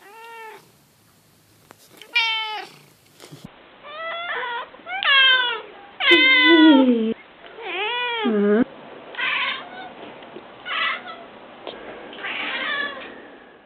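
Domestic cat meowing over and over, about nine separate meows with short gaps, each rising and falling in pitch. The last three meows are rougher and breathier.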